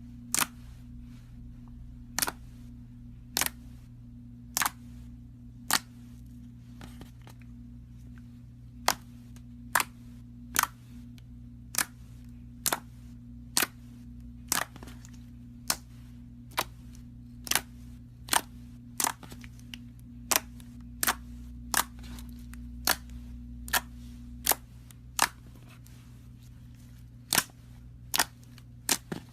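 Slime popping: a long run of sharp, short pops at an uneven pace, about one or two a second, over a steady low hum.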